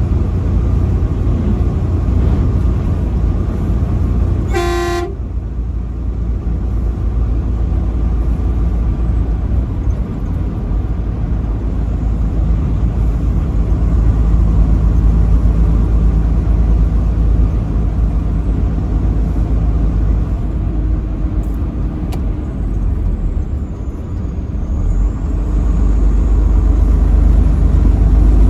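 A truck's engine and road noise give a steady low rumble while driving, with one short truck-horn toot about five seconds in.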